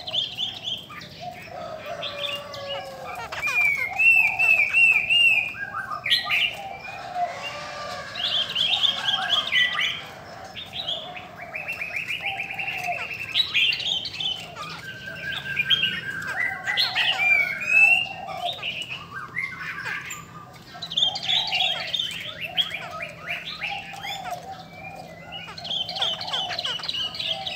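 Caged laughingthrushes calling and chattering without pause: a run of varied whistles, slurred notes and rattles, with a fast even trill about twelve seconds in and a lower call repeated throughout. These are the calls of a female laughingthrush kept to spur males into song.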